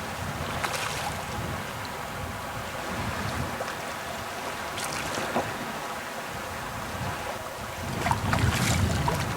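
Outdoor river water noise with wind buffeting the microphone, broken by a few brief splashes about a second in, around five seconds and near the end.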